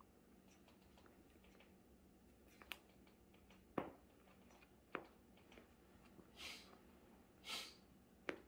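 Near silence with a few faint soft taps and two brief rustles as a cat paws and mouths a fabric catnip toy on a rug.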